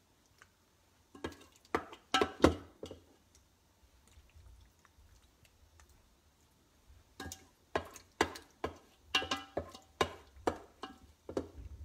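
A serving spoon knocking and scraping against cookware as saucy tortellini is spooned into a ceramic baking dish: sharp clinks with a short ring, in two bursts, one a second or two in and a longer one from about seven seconds in.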